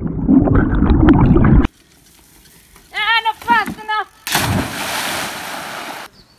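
Wind rushing over a bike-mounted camera as the mountain bike rolls downhill, cut off suddenly. Then a few short yells, and a loud splash lasting nearly two seconds as the rider and bike land in the dam.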